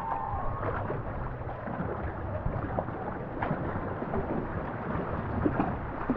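Racing canoe being paddled on a river: water splashing and dripping off the paddles with scattered small splashes, over a steady low wind rumble on the microphone.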